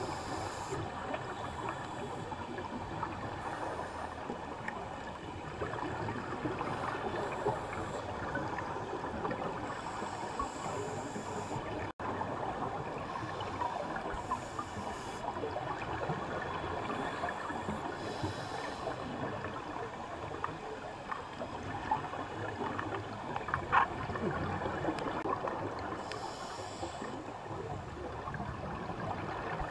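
Underwater ambience picked up by a GoPro in its housing on the sandy seabed: a steady crackling hiss, with short bursts of scuba divers' exhaled bubbles every few seconds and a single sharp tick near the end.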